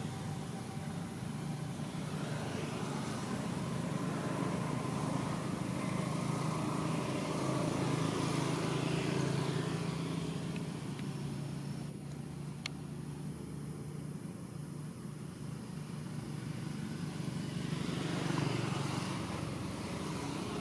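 Steady drone of motor engines running nearby, growing louder about eight seconds in and again near the end, with one brief high blip partway through.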